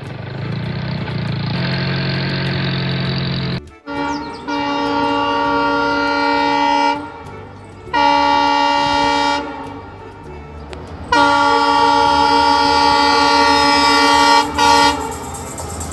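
A train horn sounds three long blasts, the last one the longest, after a few seconds of low, steady train rumble.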